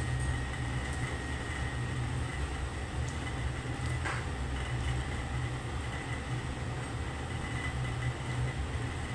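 A steady low rumble runs under the light scraping and sizzle of a wooden spatula stir-frying chicken and carrots in a wok.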